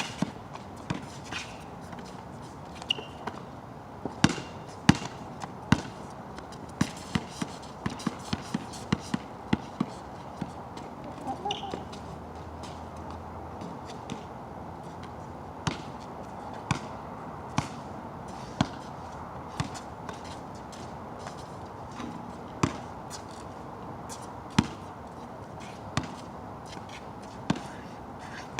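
Basketball bouncing on a wet outdoor court over a steady hiss. The bounces come quick and irregular for several seconds, then settle to about one a second, the rhythm of a steady dribble.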